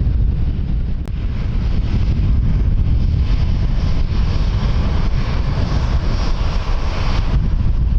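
Strong wind buffeting the microphone with a heavy, continuous rumble. From about three seconds in a broader hiss builds up over it and stops abruptly shortly before the end.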